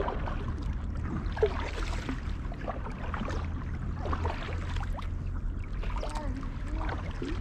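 Kayak paddle strokes: the blade dipping and pulling through the water with irregular splashes and drips, over a steady low rumble.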